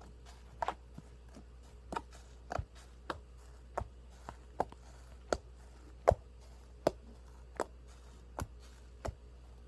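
Foamy slime being pressed over and over, giving a short, sharp pop about every three-quarters of a second.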